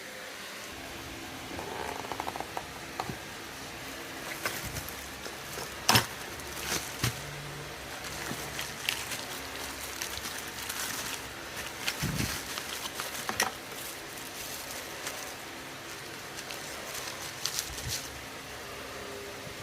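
Scattered clicks and knocks over a faint steady hum, with one sharp knock about six seconds in.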